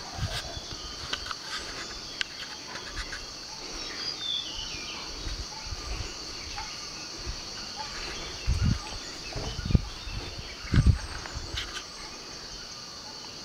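Steady high-pitched drone of insects in the surrounding forest, with a short bird chirp about four seconds in. Three loud low thumps from handling or footsteps near the microphone come between about eight and eleven seconds in.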